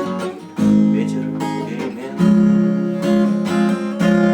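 Acoustic guitar strumming the song's closing chords: a few sharp strums, each left to ring out.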